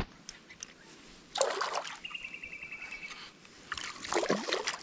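Two bursts of surface splashing, about a second and a half in and again near the end, as a sooty grunter strikes at a topwater lure in shallow creek water. A short high trill sounds between them.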